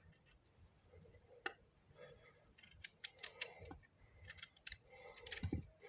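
Knife slicing a firm roasted guava: faint, crisp cuts and clicks coming in scattered clusters.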